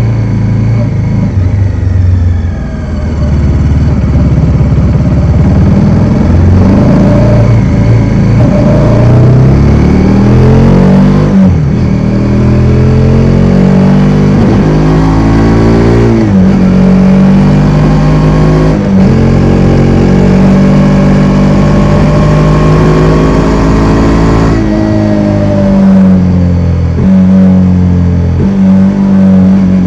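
Bajaj Dominar 400's single-cylinder engine pulling under acceleration, its pitch climbing and then dropping sharply at each of several gear changes.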